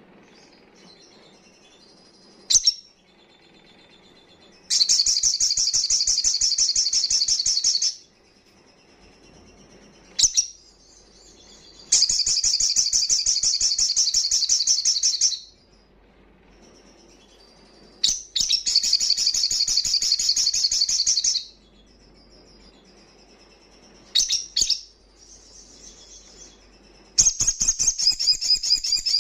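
Male olive-backed sunbird singing: four rapid, high-pitched trills of about three seconds each, with single sharp chips in the pauses between them.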